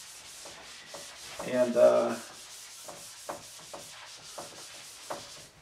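Whiteboard being wiped clean with an eraser: a steady dry rubbing against the board, with a few light knocks.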